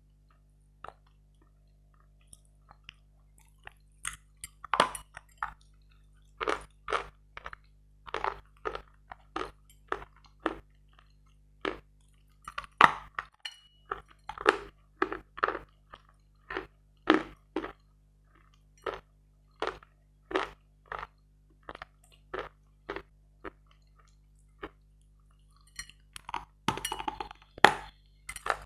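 Chewing of dry, dense, grainy 'Metel' eating chalk: a few faint ticks, then from a few seconds in a regular run of crisp crunches, about two a second, with a denser burst of crunching near the end.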